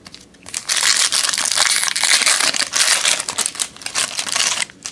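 Foil trading-card pack wrapper crinkling loudly as it is torn open and handled, with a dense run of fine crackles starting about half a second in and stopping just before the end.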